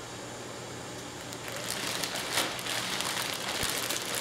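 Plastic bag crinkling and rustling as it is handled and pulled off the head, starting about a second and a half in.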